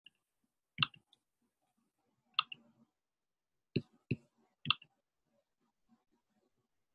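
Computer mouse clicks, about five short, sharp clicks spread over several seconds, two of them close together near the middle.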